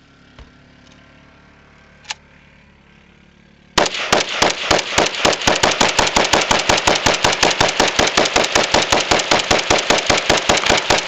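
AK-pattern rifle firing a long, rapid string of evenly spaced shots from a 50-round banana magazine, about six a second, starting about four seconds in.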